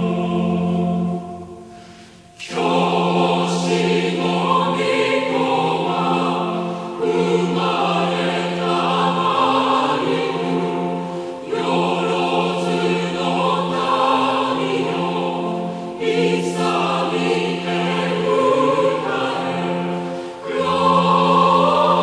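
A choir singing a Christmas hymn in long sustained phrases, with a brief pause about two seconds in.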